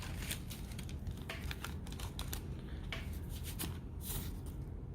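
Irregular light clicks and rustles of hands handling small phone accessories and their plastic packaging, over a faint low hum.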